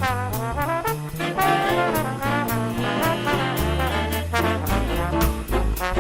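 Upbeat swing-style background music led by brass, with trombone and trumpet lines over a steady beat and bass.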